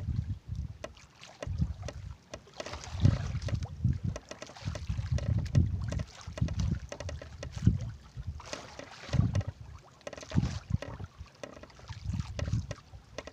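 Wind buffeting the microphone in irregular gusts aboard a small boat at sea, with stretches of water hiss from the sea around the boat.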